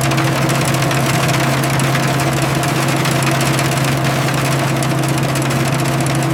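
Industrial processing machinery running steadily: a constant low hum with a rough mechanical noise over it.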